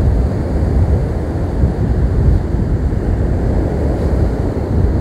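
Strong wind buffeting the microphone over storm waves breaking on the shore, a dense, uneven low rumble of noise.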